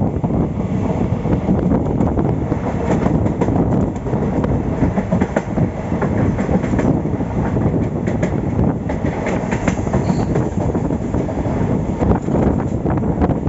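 Passenger train running along the line, heard from leaning out of a coach: a steady rumble of the wagons with irregular clatter of the wheels over the rails.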